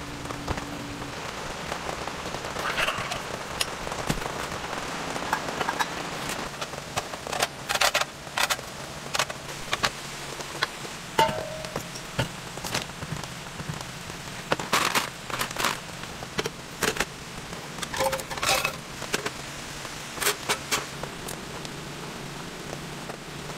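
Steady rain falling on the tent, with frequent sharp knocks and clinks of camping gear being set out: a metal mesh grill rack handled and bottles set down on it, one clink briefly ringing about halfway through.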